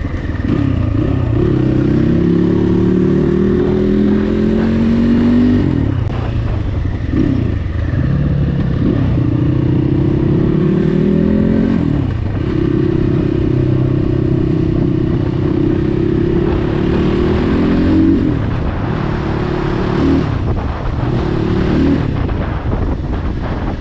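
Dirt bike engine, a CrossFire, under way on the road: its pitch climbs as it accelerates and drops back at each shift or throttle-off, twice early on, then holds steady for several seconds before easing on and off in short pulses near the end.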